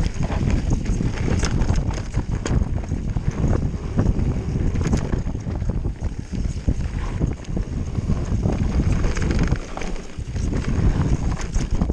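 Enduro mountain bike descending a dirt forest trail at speed: wind buffets the microphone over the rumble of tyres on dirt, with frequent sharp rattles and knocks from the bike over bumps.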